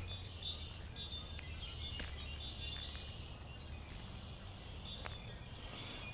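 Insects chirping steadily, faint and high, with a couple of sharp clicks about two and five seconds in from a lure being worked out of a small bass's mouth.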